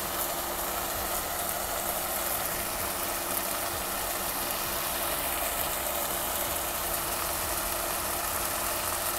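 Tuna, tomato and onion sizzling steadily as they fry in a nonstick wok, over a steady low hum.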